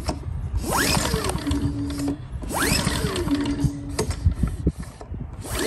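Recoil pull-starter of a Firman W2000i inverter generator pulled twice, with a third pull starting near the end. Each pull is a quick rising whir followed by a short steady tone, and the engine does not catch.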